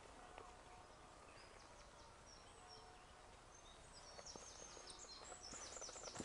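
Faint birdsong: short high chirps and quick falling notes, growing busier about four seconds in, over quiet outdoor ambience.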